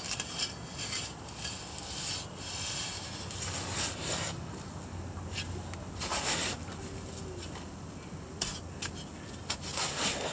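Metal shovel blade scraping and digging in gritty garden soil, a series of short rasping scrapes at irregular intervals.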